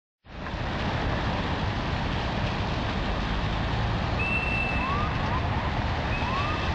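Road traffic crossing a wet, flooded intersection: a steady wash of vehicle engines and tyres hissing through standing water. A few brief high whistles sound about two-thirds of the way in.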